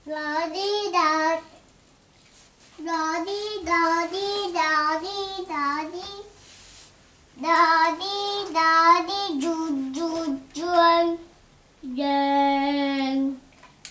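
A child's voice singing a melody in three short phrases with gaps between them, then one long held note near the end.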